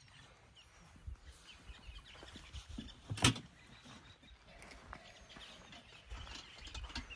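Small birds chirping over low scattered thuds of handling and movement, with one sharp knock about three seconds in.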